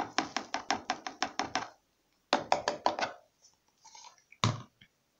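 Liquid detergent pouring from a plastic measuring cup into a washing machine's plastic detergent drawer, making two runs of quick plops about six a second, then one more near the end.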